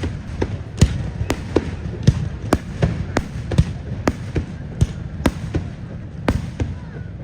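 Fireworks going off: a string of sharp bangs, irregular at about two a second, over a steady low rumble.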